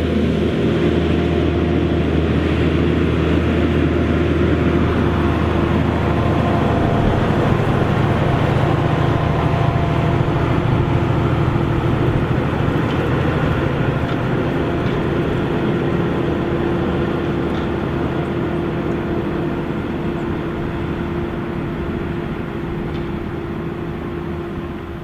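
Same Fortis 160 tractor's diesel engine running steadily under load, pulling a five-furrow Lemken plough; the sound grows slowly fainter over the second half.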